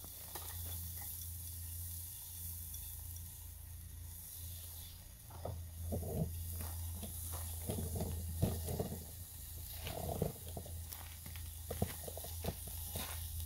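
Steady high hiss over a low hum, with scattered light knocks and clinks from about five seconds in, as the stainless steel pot and lid of a camp cook set are handled on the grill over a small wood fire.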